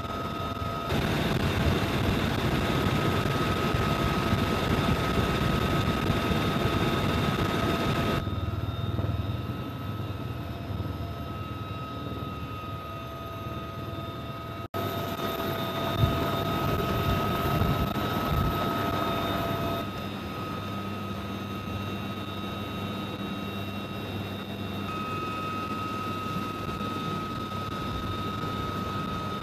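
UH-1Y Venom helicopter heard from inside the cabin: its twin turboshaft engines and rotor run steadily, with a high steady whine over the noise. The level jumps up and down abruptly several times, with a brief gap about halfway through.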